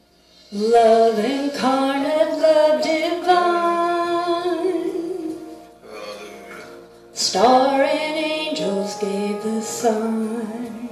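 Live church band music with a woman singing lead into a microphone, in two long sung phrases with a short break between them.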